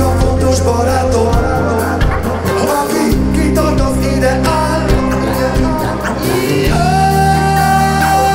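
Live band music with a man singing into a handheld microphone over bass and guitar. A long note is held near the end.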